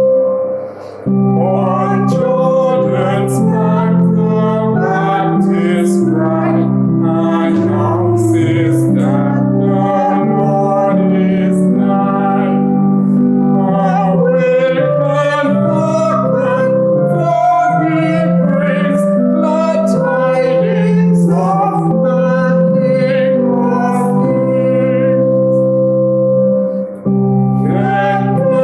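Music: singing, female voices most prominent, over sustained keyboard chords. The sound drops briefly about a second in and again near the end, between phrases.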